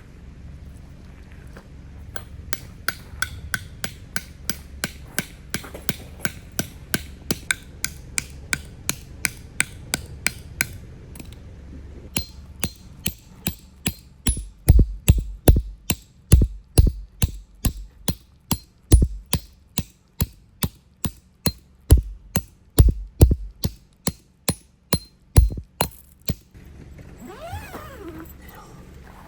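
A hammer driving a tent peg into the ground with a long, even run of sharp metallic strikes, about two to three a second; about halfway through the blows grow louder and heavier with a deep thud on each.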